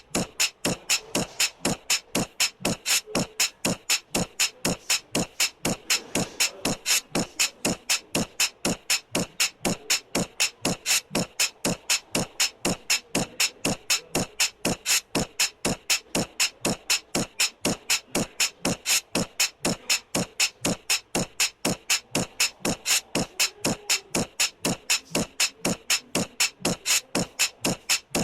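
Background music with a fast, even percussive beat of about three clicks a second.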